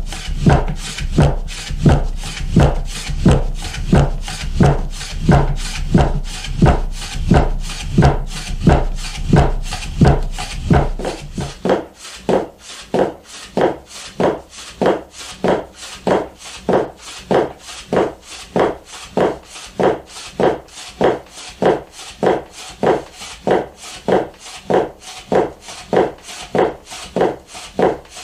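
Soba-kiri knife cutting folded buckwheat noodle dough, each stroke sliding down through the layers and knocking onto the wooden cutting board. The cuts come in a steady rhythm of about one and a half a second; about twelve seconds in, a low hum underneath drops away and the cutting goes on.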